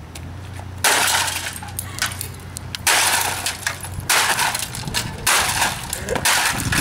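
Baseball bat smashing a plastic printer on concrete. About five hard blows come a second or so apart, each followed by the crunch and rattle of plastic pieces breaking and scattering.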